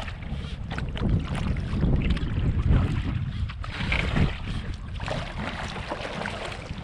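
Wind rumbling against the microphone of a camera riding on a canoe being paddled across open water. The rumble swells and eases, with faint ticks of water against the hull.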